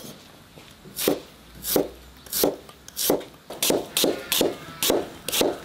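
Chinese cleaver slicing a chayote on a thick wooden chopping block: about ten separate chops, spaced unevenly, quickening in the second half as each blade stroke knocks on the block.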